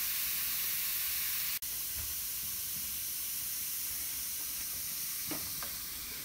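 L.O.L. Pearl Surprise baking-soda seashell fizzing as it dissolves in a pot of water: a steady fizzing hiss that breaks off for an instant about a second and a half in, with a couple of faint taps near the end.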